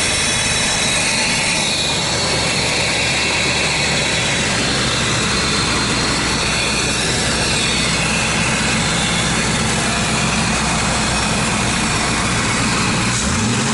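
Ford F-150 Lightning's supercharged 5.4-litre V8 idling steadily just after start-up.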